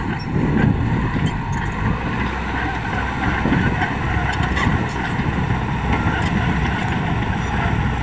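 Komatsu D85ESS-2 crawler bulldozer working, its diesel engine running steadily under load as it pushes soil and brush with the blade, with scattered clanks from the machine.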